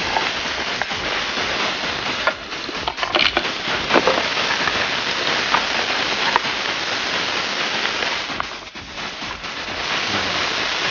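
Olive oil sizzling in a wok with chopped aromatics frying, stirred with a spatula that scrapes and taps the pan now and then. The sizzle dips briefly about eight and a half seconds in.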